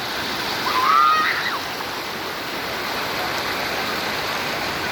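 Steady rushing of a waterfall, with a short high-pitched rising cry from a person about a second in.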